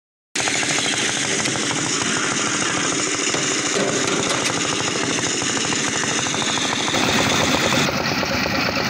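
Drum concrete mixer running: its engine runs steadily with a fast, even rattle. It starts just after a short silence.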